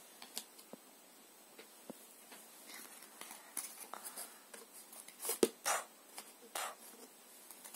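Light, scattered taps and rustles of a cardboard board book and its cardboard pieces being handled, with one sharper tap about five seconds in.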